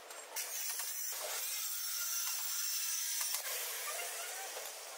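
Handheld corded electric power tool running, starting about half a second in with a high whine and dying down after about three seconds.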